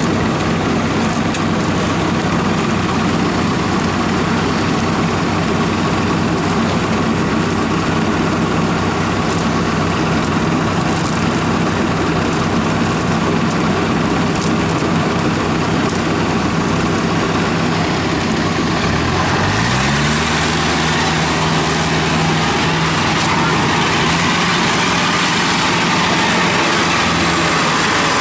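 Engines of rice-harvest machinery, a Kubota combine harvester and a small tracked rice-sack transporter, running steadily. About twenty seconds in, an engine revs up smoothly and holds at a higher steady speed.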